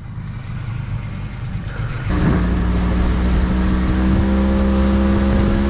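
Boat's outboard motor running low, then opened up about two seconds in to a louder steady drone as the boat gets under way, with a rush of wind and water.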